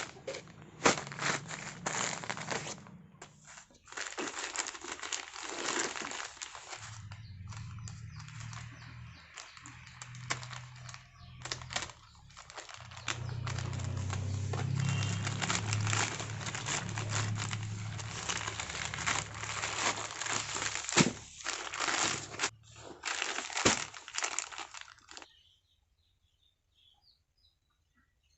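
Packaging of a 1000 g pack of Tide detergent crinkling and rustling as it is handled, with sharp crackles throughout and a low hum under it through the middle. The crinkling stops about 25 seconds in.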